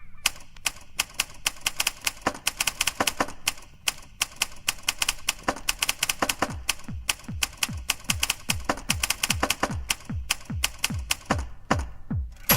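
Typewriter keys striking in a quick, irregular clatter of sharp clacks. About six seconds in, a steady beat of low thumps that drop in pitch joins underneath, two to three a second, turning the typing into a rhythm track.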